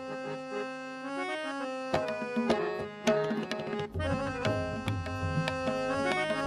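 Music from a live band: sustained, held chords, with percussion strikes coming in about two seconds in and a low, regular drum beat joining about four seconds in.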